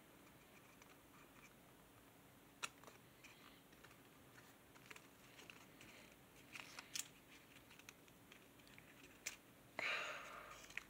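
Faint handling of origami paper as it is folded and creased by hand: a few soft, sharp clicks of the paper, then a brief rustle about ten seconds in.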